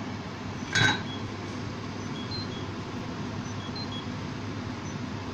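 A pot of water simmering steadily on a glass-ceramic hob while tortelloni cook, with one short sharp clink about a second in.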